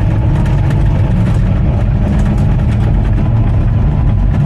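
Bulldozer's diesel engine running steadily, a loud, even low drone.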